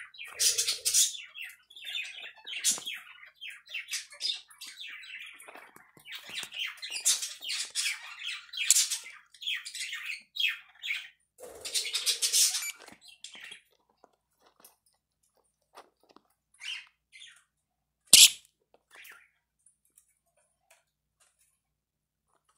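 Two lovebirds squabbling: rapid, high-pitched chattering and squawks for about the first thirteen seconds, thinning to scattered short calls. About eighteen seconds in there is one sharp, loud click.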